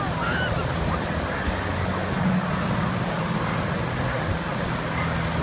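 Single propeller aerobatic plane's engine running steadily in a low, even hum as it flies by.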